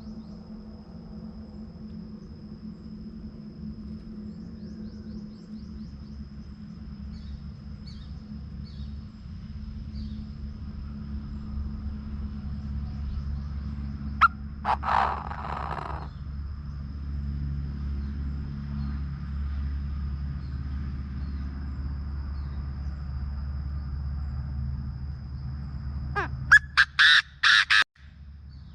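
Chinese francolin calling: a short harsh burst about halfway through, then a loud call of about five rapid notes near the end. Underneath runs a steady low hum and a thin constant high whine.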